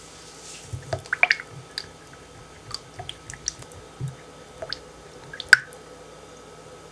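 Silicone spatula stirring lemon juice in a glass measuring cup: soft liquid swishes with scattered light clicks of the spatula against the glass, the sharpest about five and a half seconds in.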